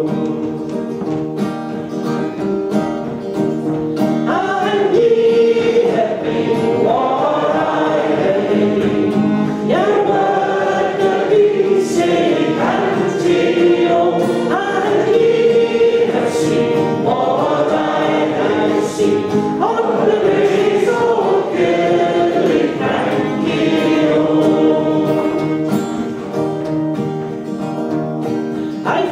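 Live Scottish folk song: fiddle and acoustic guitar accompanying several voices singing together. The fiddle stops near the end.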